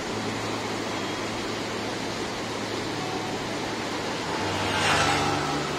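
River water rushing through white-water rapids over rocks, a steady noise of water. About five seconds in, a brief louder swell rises and fades.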